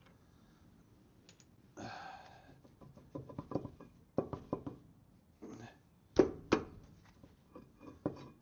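Tools and parts being handled during wheel-hub work: a brief scrape about two seconds in, then a run of sharp clicks and knocks, the two loudest about six seconds in.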